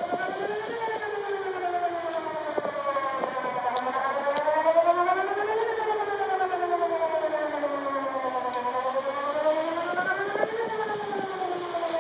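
Whelen WPS-2910 electronic outdoor warning siren sounding a wail, its pitch rising and falling smoothly about every five seconds.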